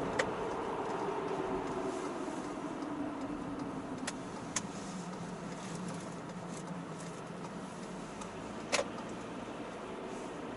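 A vehicle running with a steady hum that slowly drops in pitch, with a few sharp clicks scattered through it.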